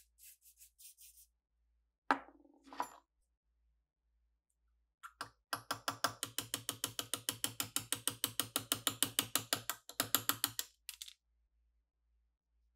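A few short hisses of aerosol penetrating oil sprayed through a straw, a clunk, then the loudest part: a fast, even run of ratcheting clicks lasting about five seconds.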